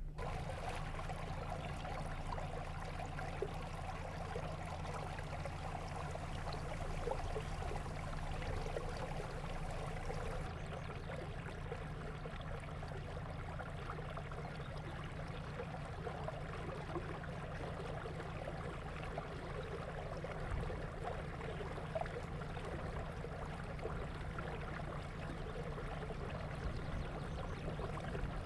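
Water trickling and lapping steadily, with a low, steady rumble underneath.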